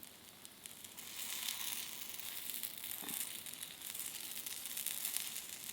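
Takoyaki batter sizzling in a takoyaki pan: a steady crackling hiss that comes up about a second in.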